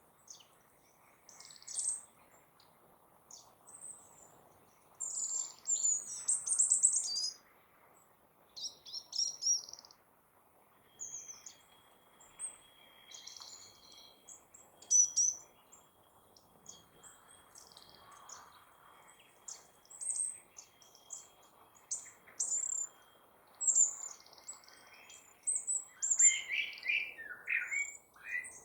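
Small songbirds chirping and twittering in quick, high, irregular phrases, several calls overlapping, with a louder burst a few seconds in and another near the end.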